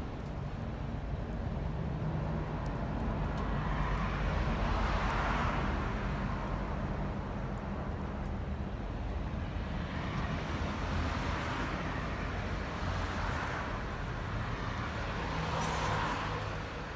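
Road traffic: vehicles passing one after another, three passes each swelling up and fading away, over a steady low rumble.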